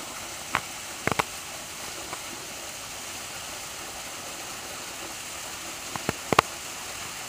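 Steady rush of a waterfall, broken by a few short sharp knocks: one about half a second in, two about a second in, and a small cluster around six seconds.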